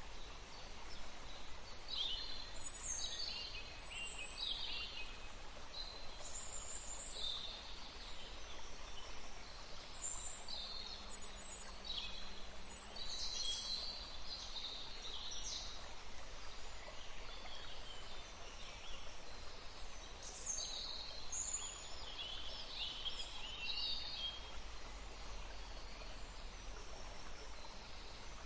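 Many small birds chirping and calling in quick, high notes that overlap throughout, over a faint steady rush of water.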